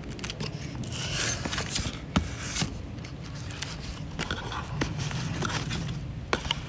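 A makeshift box cutter slitting the tape and seal on a cardboard box: stretches of scraping and rasping, broken by several sharp knocks and clicks as the box is handled.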